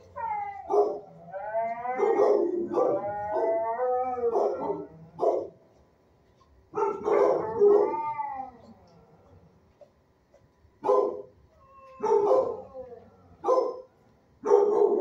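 Shelter dogs howling and barking: long wavering howls through the first half, then a few short, separate barks in the last few seconds.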